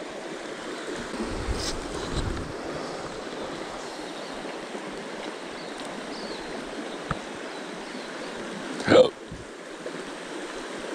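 Steady rush of a river flowing over a shallow riffle. About nine seconds in there is one brief, loud noise.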